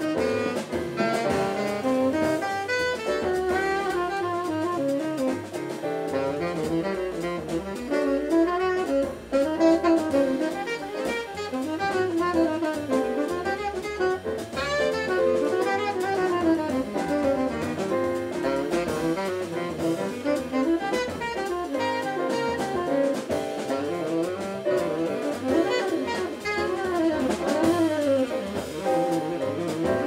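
Big band jazz: a tenor saxophone playing a solo of fast, running lines over the rhythm section's double bass and drum kit.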